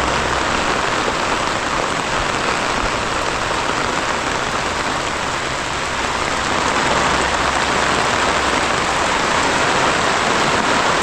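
Torrential rain pouring down, a dense, steady hiss with no breaks, growing a little louder about six seconds in.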